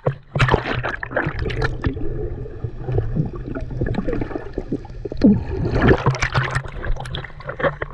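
Sea water splashing and gurgling close to the microphone in a quick, irregular run, as a swimmer moves through the water.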